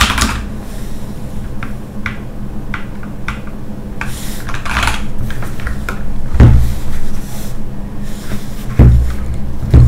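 A few scattered key clicks on a GK61 mechanical keyboard, then the keyboard being handled and lifted on the desk, with a rustle and three heavy thumps in the second half.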